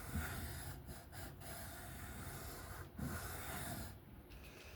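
Knife blade stroked across a 1200-grit whetstone, a soft rasping scrape, with two short breaths through the nose, one at the start and one about three seconds in.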